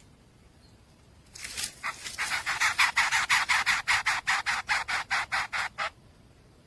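Nestlings begging with a rapid series of harsh, rasping calls, about five a second, starting about a second in and stopping near the end.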